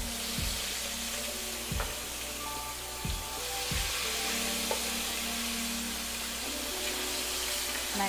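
Coated fish pieces frying in hot oil, a steady sizzle.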